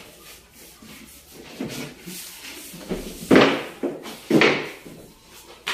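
Two loud scraping noises about a second apart, from a plywood ceiling board being pushed and slid into the ceiling frame, with lighter scuffs of board and wood before them.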